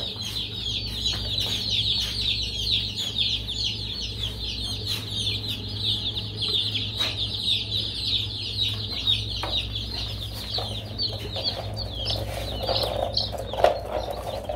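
A group of baby chicks peeping without pause, many short, high, falling chirps overlapping one another. A low steady hum runs underneath, with a few light clicks.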